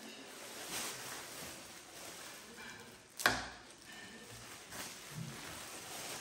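Clear plastic bags rustling and crinkling as whole raw fish are pulled out of them, with one sharp thud about three seconds in as a fish is set down on the stone countertop.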